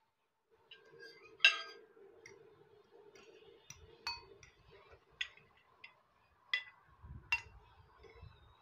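A metal fork clinking against a glass dish and plate in a series of sharp, ringing clinks, the loudest about a second and a half in.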